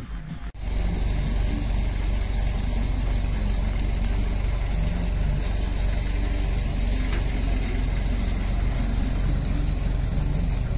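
An engine running steadily, starting abruptly about half a second in, with a constant deep drone and no change in speed.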